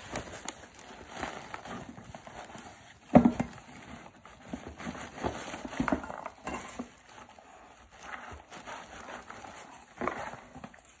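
A dog nosing and digging through a box of crumpled paper bags and plastic bags in search of hidden kibble: irregular rustling and crinkling. There is a louder burst about three seconds in, and smaller ones near six and ten seconds.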